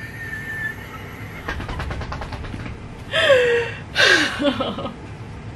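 A young woman's excited, high-pitched squealing and shrieking for joy: a thin held squeal, a fast run of taps, then two loud shrieks that fall in pitch, about three and four seconds in.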